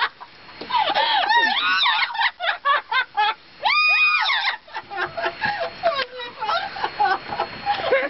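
Amazon parrots mimicking human laughter: quick runs of 'ha-ha-ha' cackles, broken about four seconds in by one long, high held squawk, then lower, choppier chuckling calls.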